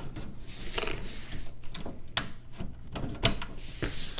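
Handling of a computer case's plastic drive-bay parts: brief sliding scrapes and several sharp plastic clicks, the loudest about two and three seconds in.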